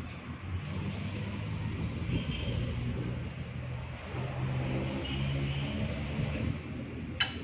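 A motor vehicle's engine running close by, its pitch shifting up and down, with a single sharp click near the end.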